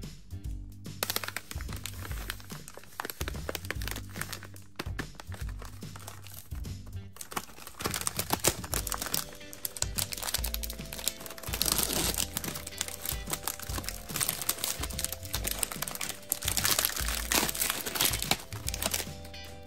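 Plastic candy packaging crinkling with many sharp crackles as a wrapped box of Peeps marshmallow chicks is handled and opened, over background music.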